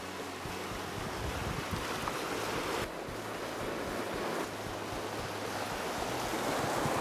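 Shallow, fast river current rushing over a rocky bed, a steady roar of water, with some wind on the microphone.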